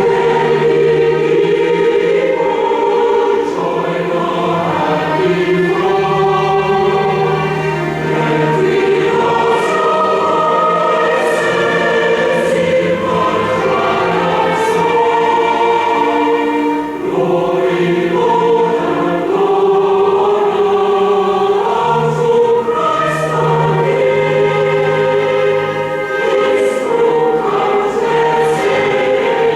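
Recorded choir singing a hymn in full harmony with instrumental accompaniment, held chords changing every few seconds.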